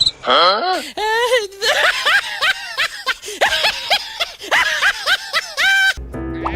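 A high-pitched, cartoon-like voice giggling and chattering in quick short syllables, with a few squeals sliding up and down in pitch near the start.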